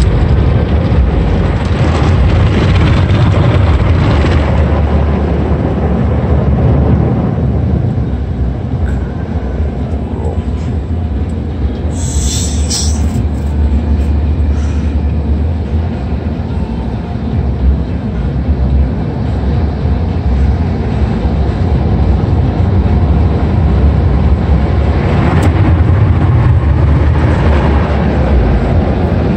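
Automatic car wash running over a car, heard from inside the cabin: a steady loud rumble with a hiss of water spray across the glass. A brief high-pitched burst comes about twelve seconds in, and the spray hiss swells again near the end.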